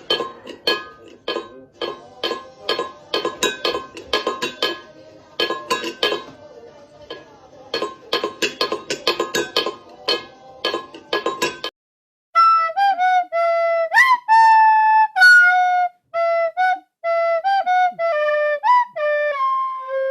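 A fast, uneven run of clinking, tapping hits for more than half the span. After a brief break comes a flute-like melody of held notes with a few quick slides in pitch.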